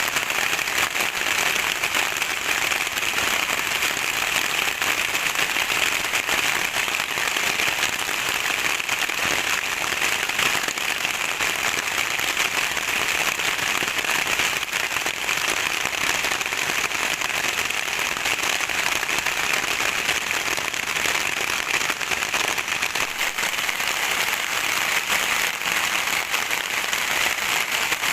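Steady rain, a dense patter of countless drops that holds an even level without letting up.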